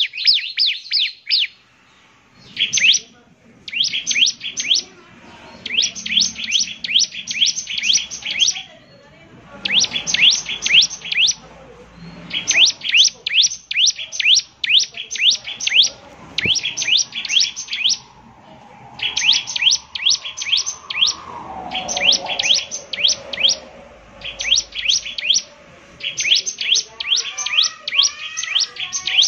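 Bar-winged prinia (ciblek) singing: repeated rapid bursts of sharp, high chirps, each note sweeping downward, each burst lasting about a second before a short pause.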